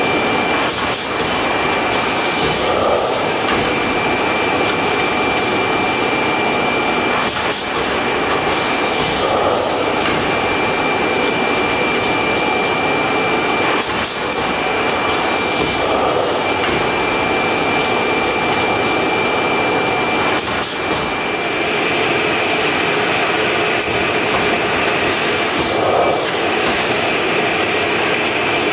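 NAVONA automatic shopper bag making machine running, a folding and gluing machine that inserts the card bottom and closes the square bottom of paper bags: a steady mechanical hum and hiss with a constant high whine, and a few short sharp clicks here and there.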